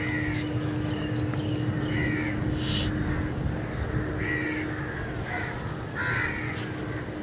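Crows cawing, several short caws spaced a second or two apart.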